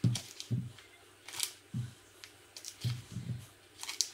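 Plain biscuits being crushed: a run of about seven crisp crunches and dull knocks at irregular intervals.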